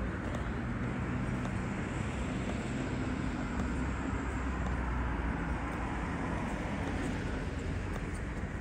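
Steady road traffic noise from cars on a city street, with a low engine rumble that swells a few seconds in.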